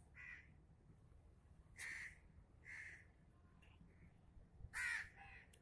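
Crows cawing faintly, a handful of short scattered caws.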